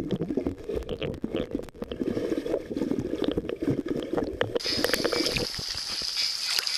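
Muffled underwater gurgling and bubble clicks heard through a camera submerged in a swimming pool. About four and a half seconds in the camera breaks the surface and the sound changes abruptly to a steady high hiss of water in open air.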